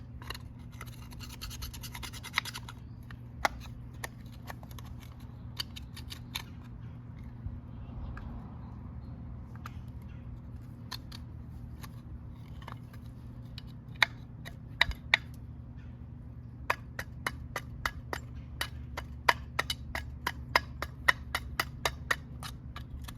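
Scrubbing and scraping built-up dirt off motorcycle parts. A quick run of rapid strokes comes in the first couple of seconds, then scattered sharp scrapes, then a dense series of sharp scraping ticks about three a second near the end.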